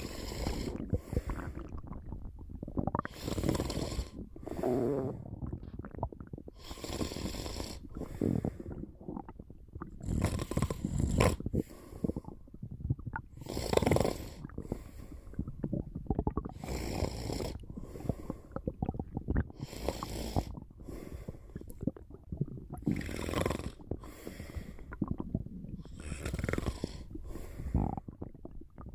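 A person snoring in sleep, a noisy breath every second or two in an uneven rhythm.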